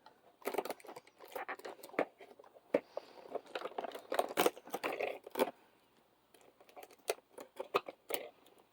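Packaging being torn open and crinkled: irregular crackling and ripping, busiest over the first five and a half seconds, then a pause and a few light clicks.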